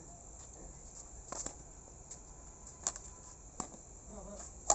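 Badminton rackets striking a shuttlecock during a rally: a few sharp pops roughly a second apart, the loudest near the end. Steady chirring of crickets runs underneath.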